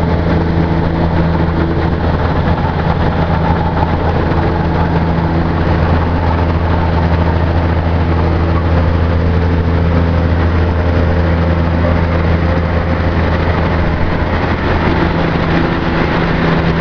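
Terex Pegson mobile crushing plant running steadily with a low, even diesel drone; no rock is going through, so there are no crushing impacts.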